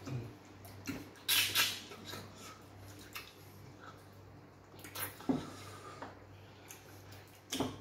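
Wet mouth sounds of eating fufu and okra soup by hand: smacking, sucking and chewing in a few short bursts, the loudest about a second and a half in.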